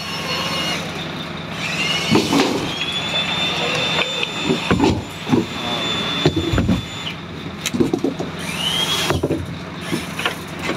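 Deck winch hoisting bags of fish out of a fishing boat's hold: a high whine that rises as it starts about a second in, holds steady for several seconds and stops, then starts up again near the end. Knocks of chain and handling over a steady low engine hum.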